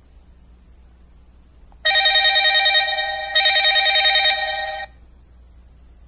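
Telephone-style ringing with a fast trill: two rings back to back, starting about two seconds in and lasting about three seconds together, over a faint low steady hum.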